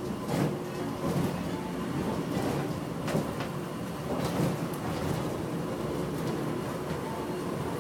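Inside a moving airport inter-terminal people-mover train car: a steady running rumble with a few short knocks and rattles.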